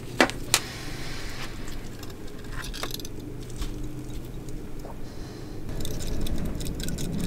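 Small metal fasteners and their hanging wires clinking and knocking as they are handled out of the plating bath. The clinks are sharp and scattered at first, then come thicker from about three-quarters of the way in, over a steady low hum.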